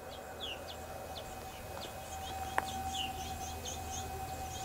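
Birds chirping in many short, quick calls over a faint steady tone, with a single sharp click a little past halfway.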